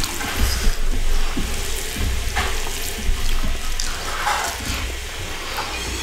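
A hand squishing and mixing cooked rice with fish curry on a steel plate, with a steady low hum underneath.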